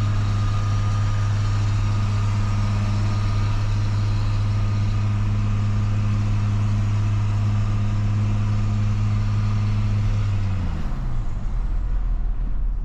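Cummins 5.9-litre 12-valve inline-six diesel heard from inside the truck's cab while driving: a steady drone that falls in pitch near the end as the revs come down.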